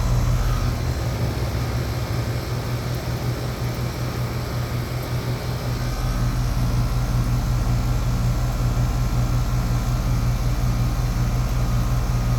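Air-conditioning condensing unit running with a steady low hum. A deeper rumble beneath it drops away about a second in and returns about six seconds in.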